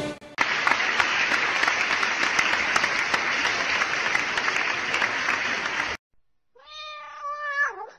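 Applause, steady clapping for about five seconds that cuts off suddenly. After a short pause comes one long domestic cat meow, dipping in pitch at its end.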